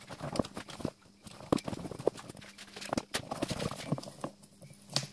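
Irregular clicks, knocks and rustling of hands working through an ATV's wiring harness, handling plastic connectors and wires.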